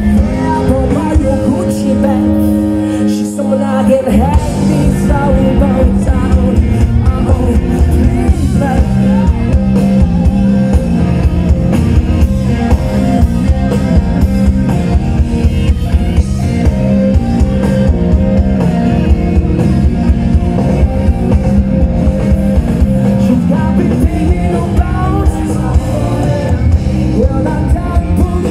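Live rock band playing loudly, with singing, electric guitars and a drum kit, heard from within the crowd. The drums drop out briefly about three seconds in, then the full band comes back with a steady beat.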